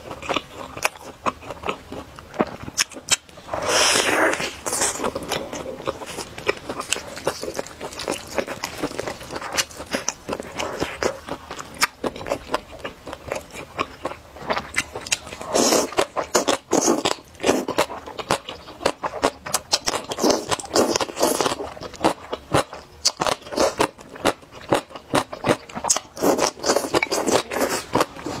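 Close-miked eating sounds: crunchy bites into a crisp fried coating and wet chewing, a steady run of sharp crackles, with several louder noisy stretches of about a second each, likely slurps of snail rice noodles.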